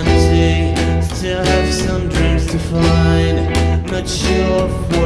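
A live band plays an instrumental passage of a folk-rock song: strummed acoustic guitar over bass guitar notes, with drums keeping a steady beat.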